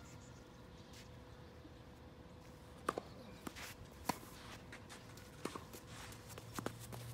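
Faint tennis rally on a hard court: scattered sharp knocks of racket strikes and ball bounces, starting about three seconds in, with a few short squeaks among them.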